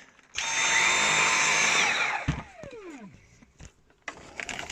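Dyson V7 Animal cordless vacuum's motor switched on with its trigger, running with a steady high whine for about a second and a half, then released and winding down in a falling whine. There is a light knock as it cuts off.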